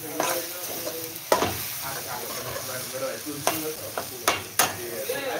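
A spoon stirring dasheen bush leaves in a stainless steel pot over heat, with a steady sizzle and a few sharp clinks of the spoon against the pot.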